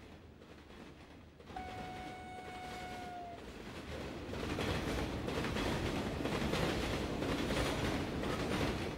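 A passenger train: its horn sounds one steady note for nearly two seconds, starting about one and a half seconds in. Then the train passes close by, and the rumble and clatter of its wheels on the rails grow loud from about four seconds in.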